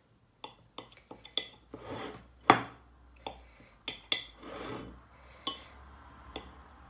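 Metal knife tapping and scraping against a ceramic plate as it cuts through a soft mashed-potato patty: a dozen or so irregular clinks, the loudest about two and a half seconds in.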